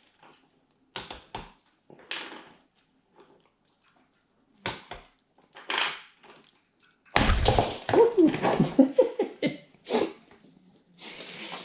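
Long-handled lever rivet gun squeezed in short strokes to set pop rivets through the stainless band of a motorcycle exhaust can, giving separate metallic crunches. About seven seconds in there are a few seconds of louder clattering and scraping of metal.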